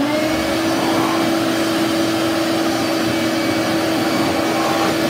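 Canister wet/dry shop vacuum running: its motor comes up to speed at the start with a rising whine, then runs steadily with a loud, even rush of air and a constant hum.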